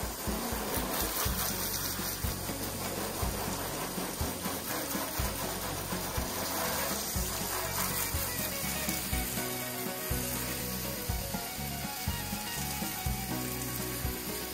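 Steady hiss of a water spray striking the rusty bed of a 1960 Dodge D100 pickup as it is washed down.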